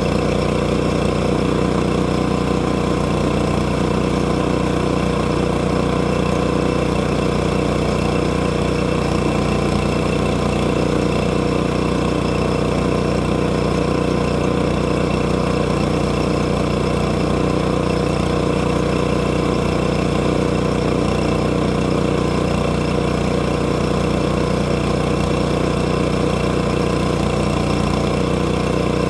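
An engine running at a steady speed, its pitch and loudness unchanging throughout.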